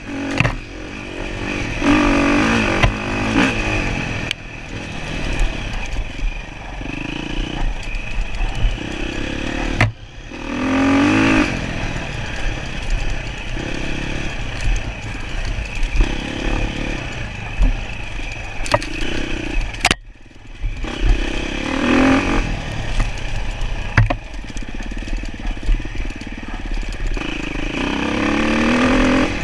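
Enduro dirt bike engine revving up and down over and over as it is ridden, with the throttle chopped briefly twice along the way, amid rattling and clatter.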